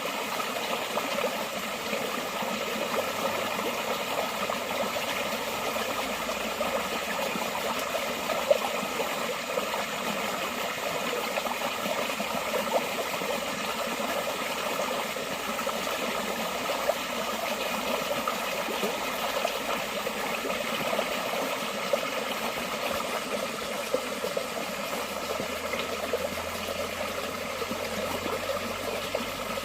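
Water flowing steadily in a forest stream.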